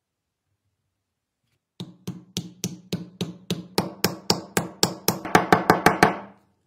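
A run of about twenty sharp wooden knocks as a new wooden handle is driven up into a ball peen hammer's steel head. They start about two seconds in at around three a second and come faster near the end, each with a short ring.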